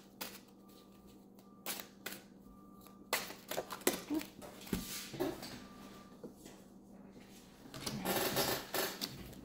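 Paper oracle cards being shuffled and handled: a scatter of sharp card snaps and slides, with a denser stretch of shuffling rustle near the end.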